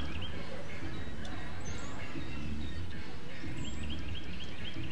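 A bird singing a quick run of short repeated chirps, about five a second, about three and a half seconds in, over a steady low background rumble.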